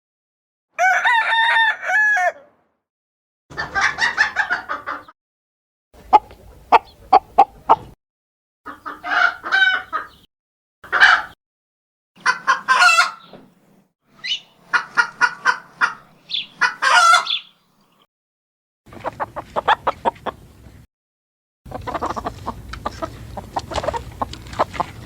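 Chickens calling in a string of short separate clips, parted by brief silences: a rooster crowing and hens clucking, about nine bouts in all.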